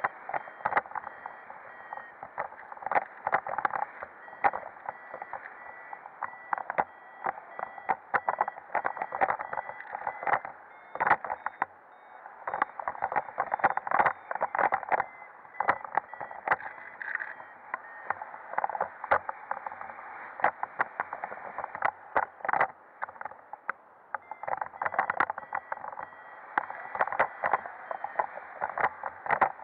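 Wind rushing over a camera carried by a paraglider pilot in flight, a dull steady rush with constant crackling gusts against the microphone.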